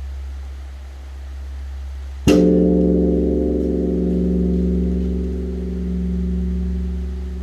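A large bronze Korean Buddhist temple bell (beomjong), struck once with a swung wooden log a little over two seconds in. It then rings on with several steady, slowly fading tones over a deep hum that swells and fades throughout.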